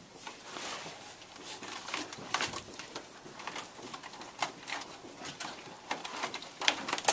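Model railroad layout scenery being broken and pulled apart by hand: an irregular series of cracks, snaps and crunches.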